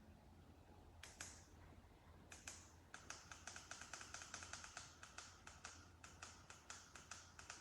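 Faint, sharp plastic clicks from the buttons of a floor lamp's remote control: a few single presses, then from about three seconds in a quick, even run of about five clicks a second as a button is pressed over and over.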